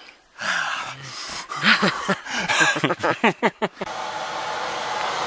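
A man's loud, wordless shouts and gasps in quick bursts after scrubbing his face with snow. These cut off almost four seconds in and give way to a steady fan-like whir.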